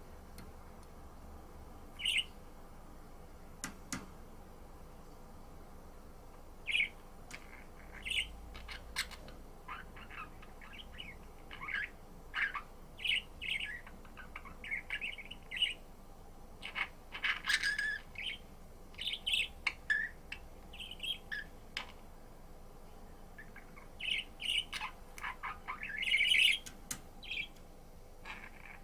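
Budgerigar chirping and warbling: many short chirps and chattering phrases, sparse at first, then busy through the middle and again near the end.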